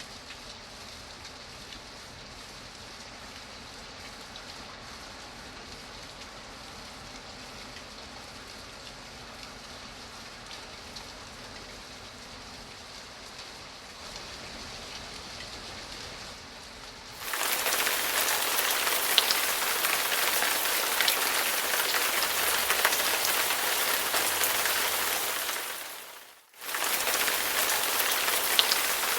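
Steady rain hiss, fairly faint for the first seventeen seconds, then abruptly much louder and denser, with individual drops ticking. Near the end it fades into a brief gap of under a second, then returns at full strength.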